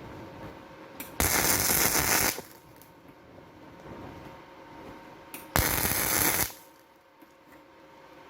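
Two short bursts of electric arc welding crackle, each about a second long, starting and stopping abruptly: tack welds on a broken steel greenhouse vent-opener handle.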